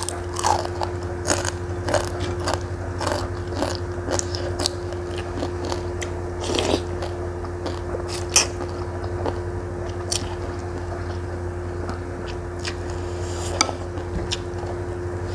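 Close-miked eating: crunching and chewing a crispy fried cracker, with wet chewing and slurping of glass noodles and spoon sounds, a string of sharp crunchy clicks over a steady low hum.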